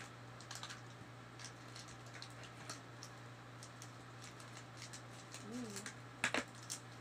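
Light clicks and crinkles as a small plastic toy carton and its wrapper are handled and opened. Near the end comes a sharp snip as scissors cut the wrapper.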